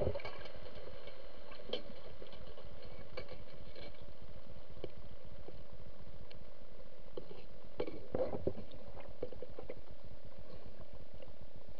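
Underwater ambience picked up through a submerged action camera's waterproof housing: a steady hiss with scattered faint clicks, and a few soft knocks about eight seconds in.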